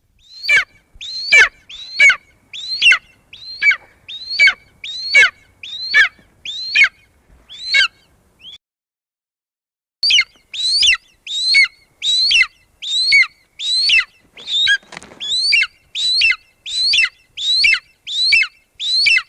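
Golden eagle calling: a string of short calls, each falling steeply in pitch, about one and a half a second. The calls stop for about two seconds near the middle, then start again.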